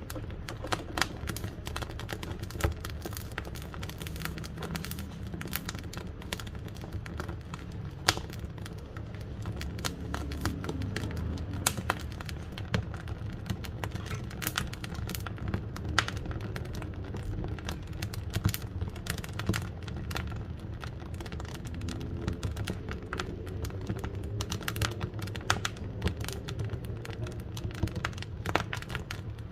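Wood fire burning in a wood-burning cook stove: a steady low rumble of the flames with frequent irregular sharp crackles and pops of the burning wood.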